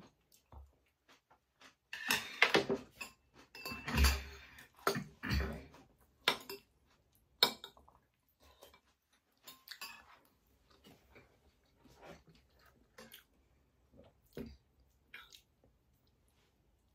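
Eating at a table: metal spoons and chopsticks clicking and scraping against plates, bowls and plastic food containers, with some chewing. There is a cluster of louder clatter about two seconds in, then scattered light clinks.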